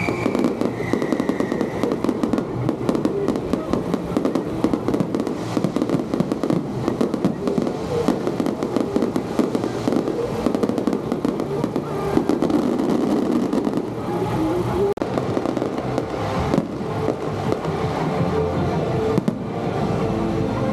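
Fireworks going off in a dense, rapid, continuous crackle of bangs, with a brief break about fifteen seconds in.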